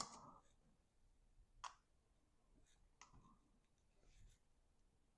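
Near silence with a few small clicks and taps from handling: one sharp click at the very start, then fainter ones about a second and a half, three and four seconds in.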